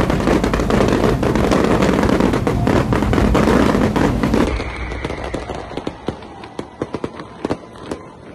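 Fireworks crackling and popping densely over a low rumble. About four and a half seconds in, the level drops and only scattered single sharp pops remain.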